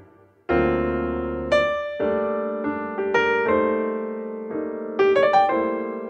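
Solo piano background music, a slow melody of single notes and chords, each struck and fading, after a brief pause about half a second in.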